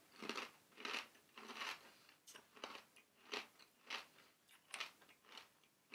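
Crunchy chewing of a hard pork scratching in the mouth: a steady run of crunches, about two to three a second, fainter near the end.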